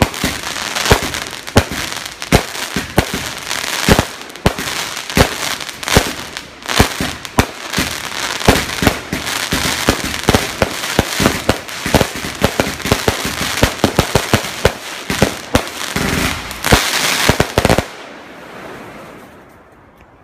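A 112-shot firework cake firing, its shots and bursts cracking out in quick irregular succession. A dense final volley runs for about two seconds near the end, then the firing stops.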